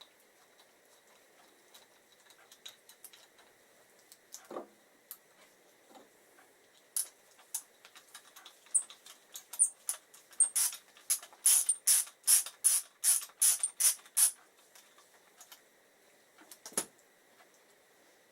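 Socket ratchet clicking in a quick run of strokes, about three a second, for roughly seven seconds from about a third of the way in, tightening the brake pad retaining pin back into the front brake caliper. A couple of dull knocks of tools or parts being handled come before and after.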